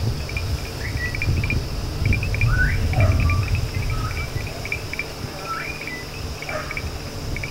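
Night-time outdoor ambience: crickets chirping in quick short pulses, with a few short rising calls mixed in and a steady low rumble underneath.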